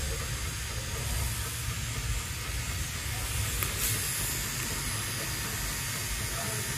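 Rotary tattoo pen running steadily while tattooing a scalp: a faint even motor whine under a steady hiss and low rumble.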